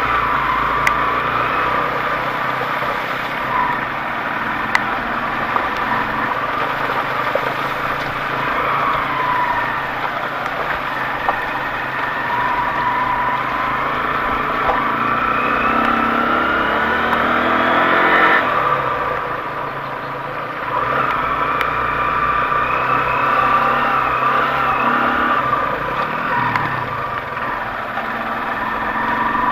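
Off-road vehicle engine running under load and revving, its pitch climbing and falling as the throttle is worked, with the highest rev about eighteen seconds in before it eases off.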